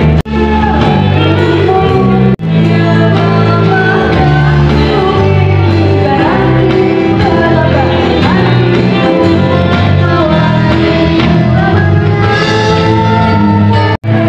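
Music with singing over a steady bass line. It drops out for an instant just after the start, again after about two seconds, and near the end.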